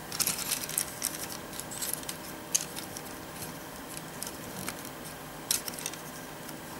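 Small plastic clicks and rattles of a Transformers Deluxe Ratchet action figure being handled and reposed by hand. There is a quick run of clicks in the first couple of seconds and a few more about five seconds in.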